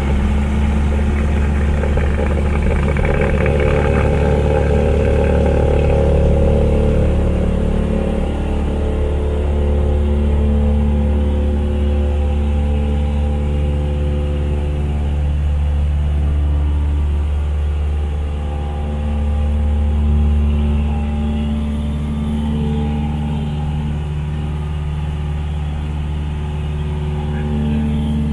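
Cessna 172's piston engine and propeller at full takeoff power, a loud steady drone heard from inside the cabin through the takeoff roll and climb-out.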